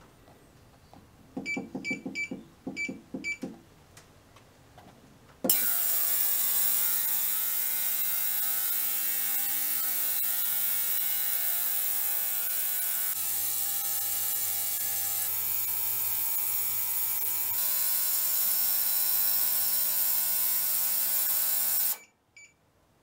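Digital ultrasonic cleaner: a few beeps as its control-panel buttons are pressed, then the tank starts up with a loud, steady high hiss over a buzzing hum. It runs through its cleaning cycle and cuts off suddenly near the end, followed by two short beeps as the timer reaches zero.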